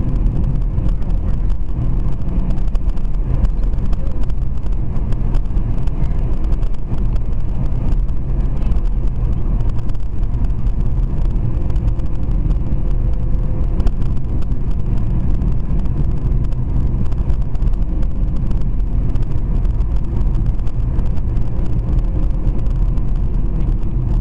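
A car driving: a steady low rumble of engine and road noise that holds even throughout, with no impact or crash.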